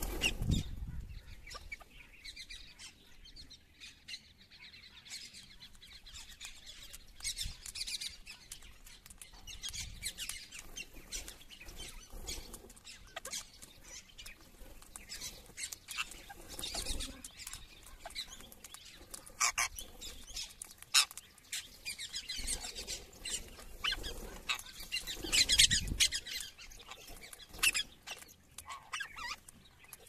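A feeding flock of rose-ringed parakeets: harsh screeching calls, bursts of wing flapping and many sharp clicks. The loudest flurries come right at the start, around the middle and once more late on.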